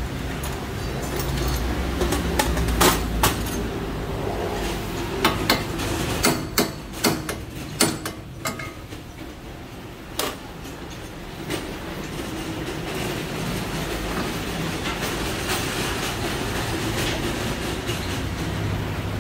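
Metal tools clanking and knocking in a workshop: a cluster of about a dozen sharp, irregular knocks in the middle, over a steady low hum.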